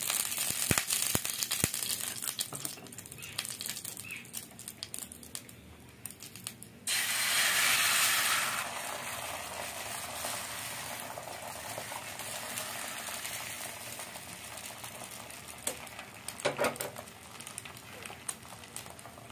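A spoon clicks and scrapes as oil is spread on a hot flat tawa. About seven seconds in, egg hits the hot oiled pan with a sudden loud sizzle that settles into a steady frying sizzle.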